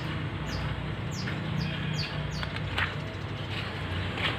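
A small bird chirping repeatedly, short high chirps that fall in pitch about every half second, over a steady low hum. A few faint clicks come from a screwdriver turning a screw on a motorcycle carburettor.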